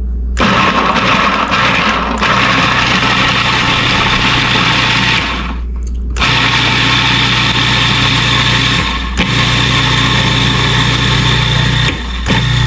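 Food processor running in four bursts of a few seconds each, chopping fresh garlic cloves, with short stops between the runs.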